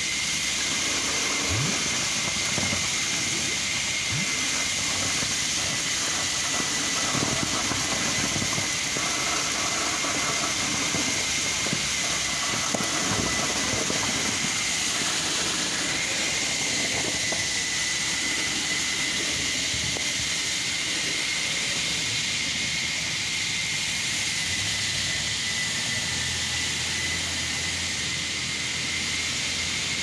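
Concrete pump running: a steady mechanical hiss with a constant high whine as concrete is pushed through the steel delivery pipeline.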